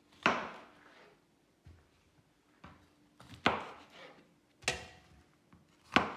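Large kitchen knife cutting through bletted medlars and striking a chopping board: four sharp chops spread unevenly, with a few faint taps between them.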